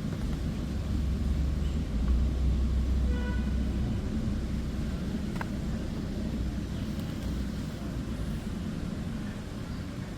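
Steady low rumble of a moving road vehicle, with a short beep about three seconds in.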